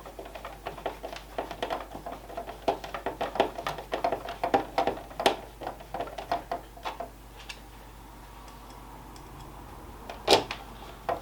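Plastic housing parts of a gaming steering wheel being handled and fitted together: a quick run of small clicks and taps for about seven seconds, then a single loud knock near the end.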